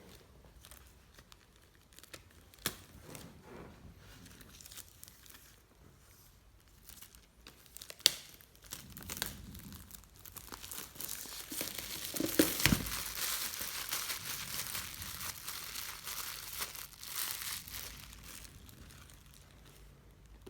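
Plastic shrink wrap being torn and peeled off a MacBook Air box. A few sharp handling clicks come in the first half, then about eight seconds of loud crinkling and tearing, loudest a little past the middle.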